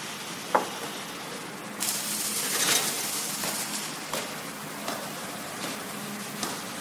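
Automatic ring seam welding machine at work: a steady hiss with a few scattered ticks, louder for a second or two about two seconds in. A sharp click sounds about half a second in.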